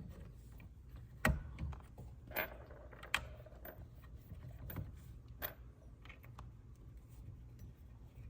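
Scattered light clicks and metallic taps, about half a dozen, of screws and hardware being handled while screws are threaded by hand into a power recliner's replacement motor mounting.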